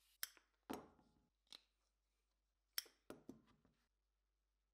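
Sharp metallic clicks and snaps of a hand tool being squeezed and released, in two clusters of two or three, each snap with a short ringing tail.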